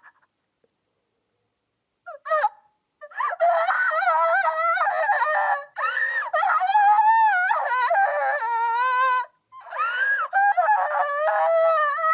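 A cartoon girl's voice crying: high, wavering wails and sobs in bursts from about two seconds in, with a brief break near the end.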